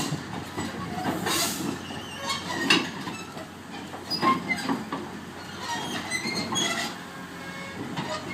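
Excavator crawling slowly on its steel tracks, with irregular metallic clanks and brief squeals from the track links over the running engine.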